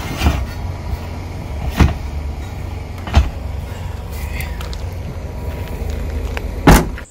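Steel wheels knocking as they are set down in an SUV's cargo area, three sharp knocks in the first few seconds, then the SUV's rear liftgate slammed shut near the end, the loudest sound. A steady low rumble runs underneath.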